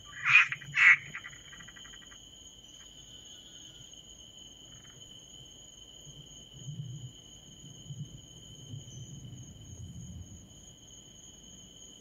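Night insect chorus, a steady high-pitched trilling on two pitches. Near the start two short, loud calls come about half a second apart, and faint low rumbling comes and goes later on.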